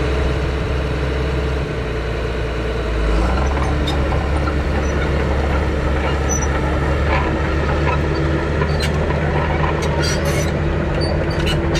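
Crawler bulldozer on the move: its diesel engine runs steadily under load while the steel tracks clank and squeal. The engine note shifts and grows a little louder about three seconds in.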